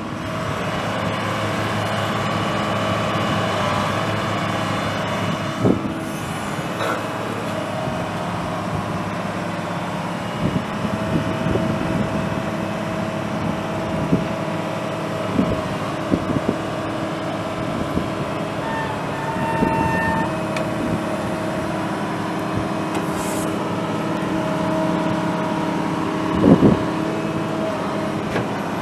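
Kobelco SK220LC excavator's six-cylinder turbo diesel running steadily, with occasional short knocks and clunks, the loudest near the end.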